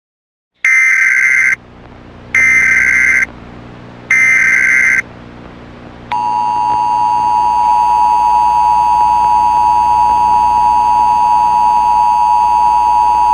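Emergency Alert System tones: three roughly one-second bursts of SAME header data with short gaps between them. About six seconds in, the two-tone EAS attention signal begins and holds steady.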